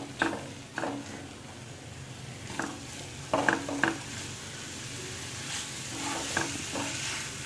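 Mutton pieces in masala sizzling as they fry in a nonstick pan, with a spatula stirring and scraping through them in a handful of strokes over the first four seconds and a few fainter ones near the end.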